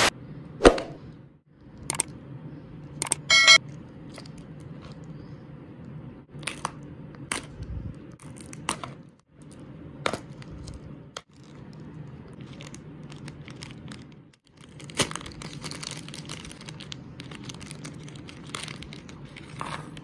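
Brown paper wrapping crinkling and tearing as a small packet is unwrapped, with sharp clicks and crackles. Near the end a thin plastic bag rustles more densely. A steady low hum runs underneath.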